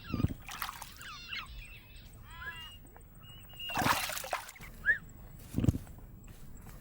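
Short repeated chirping calls, with a few dull thuds and a brief rush of noise about four seconds in.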